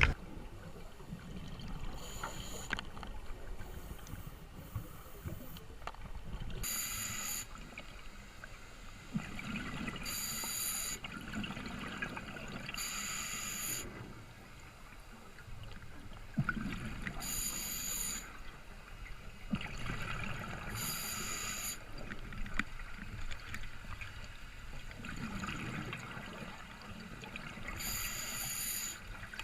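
Wind rumbling on the microphone while ocean waves wash in, with a hissing surge about every three to four seconds.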